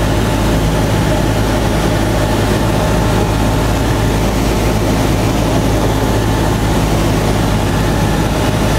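Cessna 172's piston engine and propeller droning steadily, heard from inside the cabin during the landing approach, with a constant low hum and no change in pitch.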